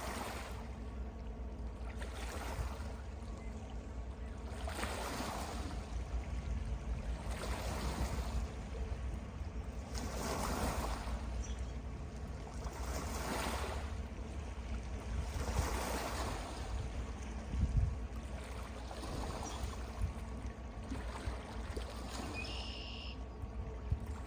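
Water swishing in regular surges about every two and a half seconds, over a low steady rumble, with a short high chirp near the end.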